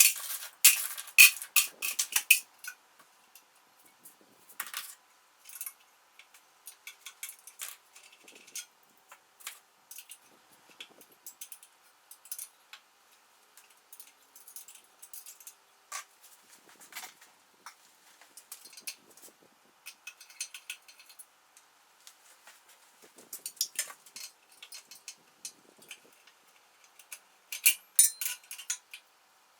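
Small metal tools and parts clinking and clicking as they are handled during disassembly of a scroll saw, in scattered irregular taps, busier at the start and again near the end.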